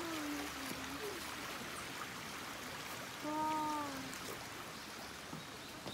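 Shallow stream flowing steadily, an even rush of water. A voice trails off in the first second, and someone's short held vocal sound comes about three seconds in.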